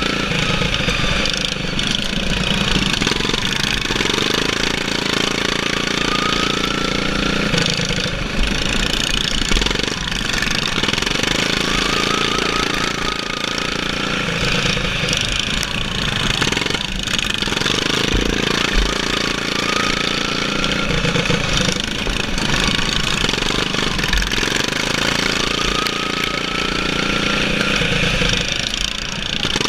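GP-class racing lawn mower engine, governed at 3650 RPM, running hard without a break, with a thin whine that rises in pitch several times.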